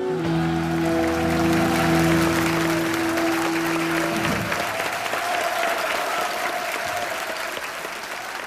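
Audience applause at the end of a live song, over the band's final held chord on guitars and keyboard, which rings out and stops about four seconds in while the clapping carries on.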